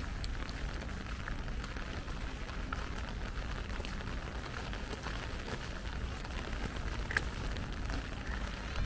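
Light rain falling, a steady hiss with scattered drops ticking close by, over a low steady rumble.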